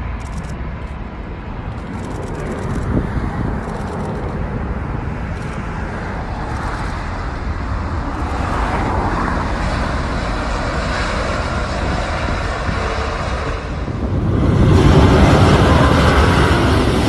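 Twin-engine jet airliner's engines running during touchdown and rollout on the runway, a steady rushing noise that swells a little partway through. Near the end it switches abruptly to a louder, fuller jet engine noise from another airliner.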